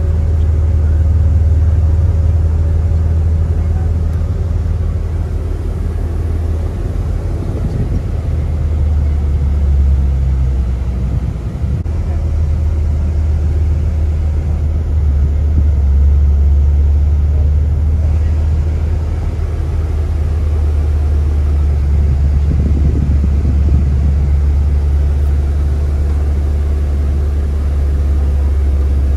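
Steady low rumble of engine and road noise, heard from inside a moving vehicle.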